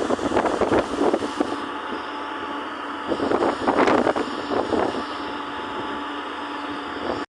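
Excavator engine running steadily, with wind gusting on the microphone.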